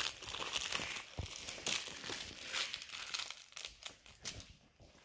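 Crinkling and rustling as beagle puppies scuffle in a fabric dog bed and chew and tug at a corduroy plush toy, in a quick irregular patter that grows quieter near the end.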